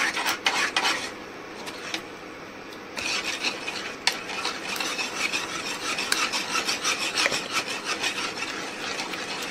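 A utensil stirring and scraping round a bowl in fast, steady rasping strokes. It eases off for about two seconds near the start, then keeps going continuously.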